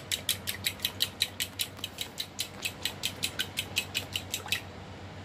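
Metal fork beating eggs and water in a bowl, clicking against the bowl about six or seven times a second in an even rhythm, stopping shortly before the end.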